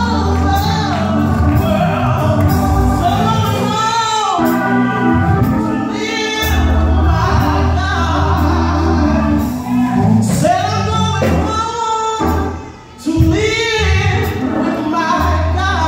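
A man singing a gospel song through a handheld microphone, his voice amplified over instrumental accompaniment with a steady low bass. The singing breaks off briefly near the end before coming back in.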